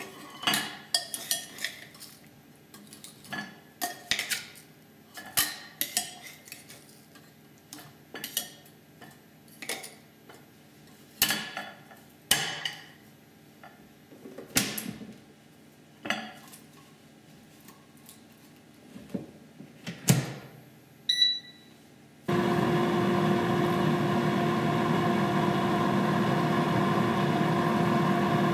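Metal clinks and knocks as potato strips are loaded into an air fryer's metal mesh rotating basket and its lid is closed, then a few short beeps from the controls. About 22 seconds in the air fryer starts: a steady fan hum with a whine.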